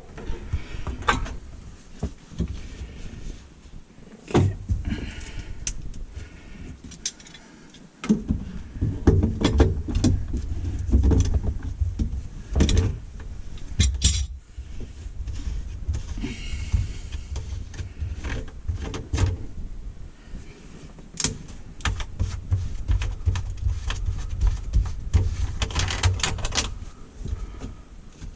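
Irregular clunks, knocks and scrapes of hand work on an old kitchen sink drain trap and garbage disposal, over low rumbling handling noise that grows heavier about eight seconds in.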